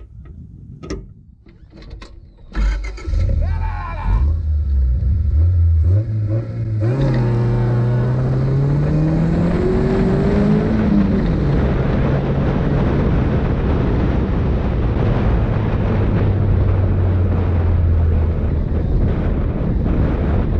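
Honda-engined off-road buggy pulling away and accelerating: the engine note climbs in steps over the first several seconds, then settles to a steady cruise. From about a third of the way in, a loud steady rush of wind and dirt-track noise runs under it.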